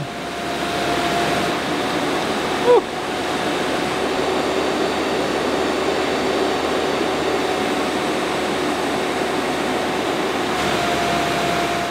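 BMW 2002 heater box blower fan motor running at full speed off a car battery: a steady rush of air with a faint hum, showing the rebuilt blower motor works. A short rising sound cuts in about three seconds in.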